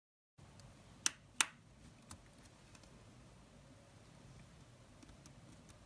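Small Chromebook keycap snapping onto its hinge clip as it is pushed down: two sharp clicks about a third of a second apart, about a second in, show that the keycap has seated. A few faint ticks follow.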